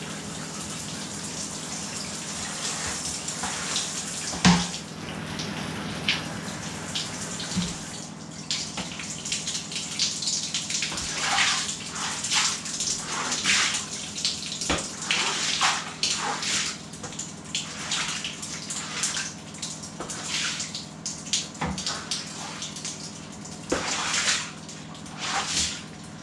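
Water running and splashing onto a tiled shower floor and draining, steady at first, then breaking up from about eight seconds in into irregular splashes and drips. A single sharp thump comes about four seconds in.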